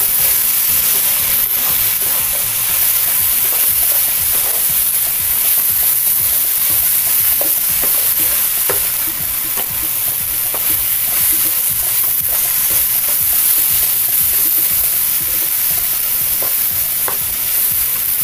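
A spatula stirs and scrapes a sticky mixture of ripe plantain, grated coconut and jaggery water around a nonstick pan over a high flame. A steady frying sizzle runs under it, with scattered light ticks of the spatula against the pan.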